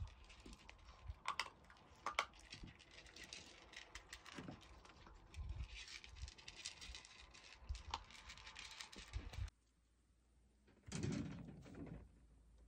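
A puppy and a cat eating from a plastic slow-feeder bowl: faint, irregular small clicks of food and teeth against the bowl. The sound cuts off abruptly about nine and a half seconds in, and a short noise of about a second follows shortly after.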